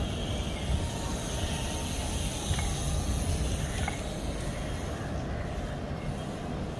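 Steady low rumble and hiss of outdoor city background noise, with a couple of faint clicks in the middle.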